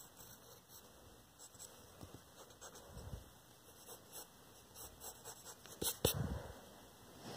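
Pencil scratching on paper in short, faint strokes and taps. About six seconds in there is a louder bump and rustle as the phone is handled.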